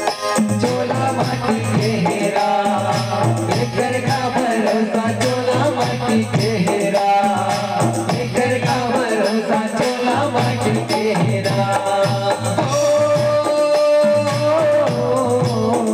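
Live Chhattisgarhi devotional bhajan music: an electronic keyboard melody over a steady hand-drum beat, with a male voice singing through a microphone. Near the end a single note is held steadily for about two seconds.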